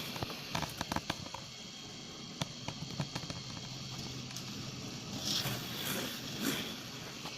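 A few light clicks and soft rustling, as of hands or a camera being handled, over a faint steady hum.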